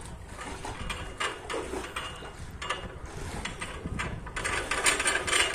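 Well pulley with a rope running over it as water is hauled up from an open well: irregular metallic clicking and rattling that gets busier and louder near the end.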